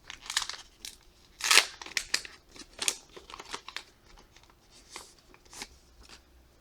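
A trading-card pack wrapper being torn open and crinkled in a quick run of short rips and crackles. The loudest tear comes about a second and a half in.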